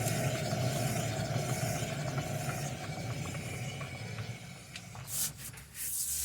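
Worn right rear wheel bearing of a 2011 Chevy Impala humming as the wheel is spun freely by hand, a steady hum that fades as the wheel slows after about four seconds. Near the end come a few short, loud rushing scrapes. The hum is the sign of the failed bearing, which has play and sounds harsher than the good side.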